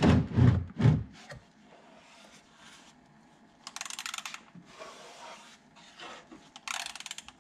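A ratchet on a cap-style oil filter wrench working the oil filter housing. There are a few knocks in the first second, then two short bursts of rapid ratchet clicking, about four seconds in and again near the end.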